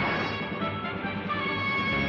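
Background music from the show's soundtrack, with several notes held steadily; a short sharp hit lands right at the start.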